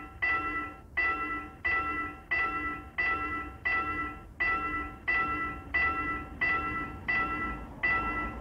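Korean railway level-crossing warning bell ringing in a steady, even rhythm, a little under two strokes a second. Each stroke is a bright multi-tone ding that fades before the next: the crossing is closed for an oncoming train.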